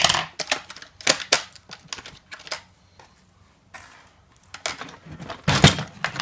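Scissors snipping the ties that hold a figure under a plastic toy playset's base, a string of sharp clicks, then louder plastic knocks and rattles near the end as the hollow plastic playset is handled and turned over.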